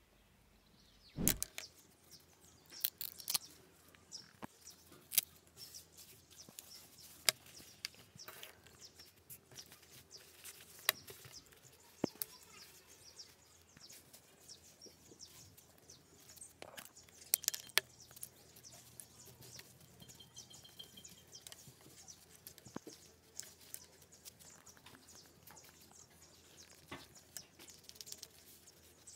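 Scattered light taps and clicks from hands handling a denim strip with a zipper and a metal button on a marble tabletop. The loudest is a single thump about a second in.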